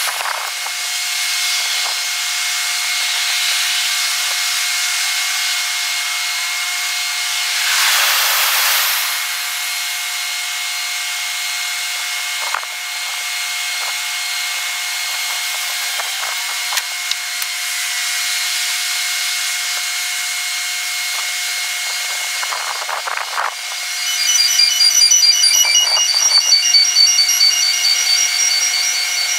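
Sixfold sped-up night ambience of a railway station and street: a steady high hiss with a passing swell, a few short clicks, and in the last five seconds a rapid run of repeating high chiming tones.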